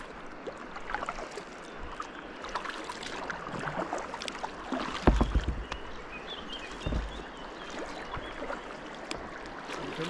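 Kayak on the water: sloshing and splashing with scattered knocks on the hull, and two low thumps about five and seven seconds in.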